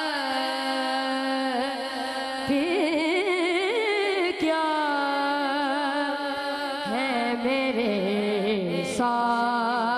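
A boy singing an Urdu naat, drawing out long melismatic notes with vibrato and sliding between pitches.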